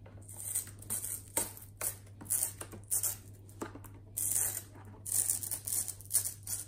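Glued plastic cover strip being pried and peeled off an all-in-one PC's bezel with a plastic spudger: irregular clicks, small cracks and scraping as the adhesive lets go.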